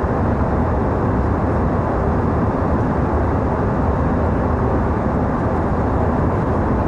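Passenger airliner cabin in cruise flight: a steady, dense low hum of engine and airflow noise with little in the high frequencies.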